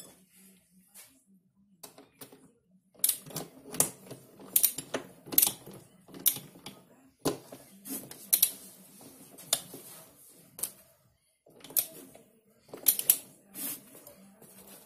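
Spanner and hand tools working on a V-50 moped engine's aluminium crankcase: irregular sharp metallic clicks and clinks, several a second in bunches, starting about three seconds in and pausing briefly near the end.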